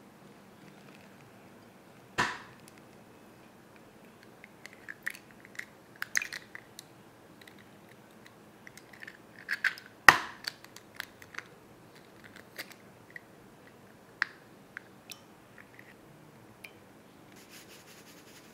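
Eggs being cracked and dropped into a small glass bowl: a few sharp knocks, the loudest about ten seconds in, among scattered light clicks and taps of shell and glass, with a short rustle near the end.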